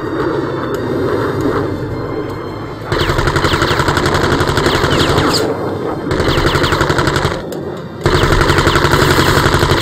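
A steady jet roar, then a tripod-mounted heavy machine gun firing three long bursts of rapid fire, starting about three seconds in.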